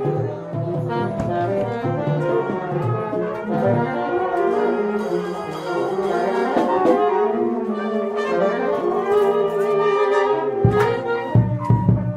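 Brass music in the style of an old film soundtrack, with low brass such as trombone to the fore, playing a run of held and changing notes.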